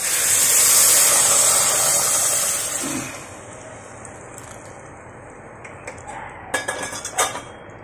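Boiled water poured into a pan of hot, oil-roasted rice and spices, hissing and sizzling loudly at once and dying away after about three seconds. A few sharp metal clinks against the pan follow near the end.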